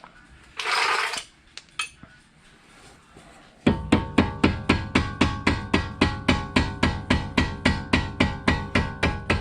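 A mallet hammering on a screwdriver to drive a stuck bolt out of the strut assembly: a steady run of sharp metal blows, about four a second, each ringing, starting a little past halfway. Before that comes a short rustle.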